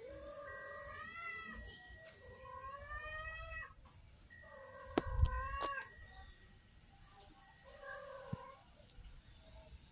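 A hungry stray cat meowing, about four long drawn-out meows that rise and fall in pitch, with a couple of sharp knocks about halfway through.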